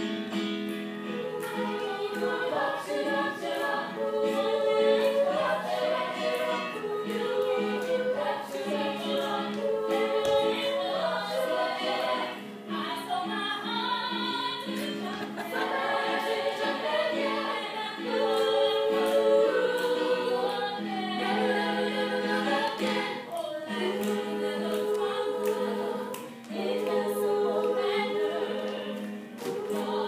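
Choir music: many voices singing held notes together in harmony, with short breaks about twelve and twenty-six seconds in.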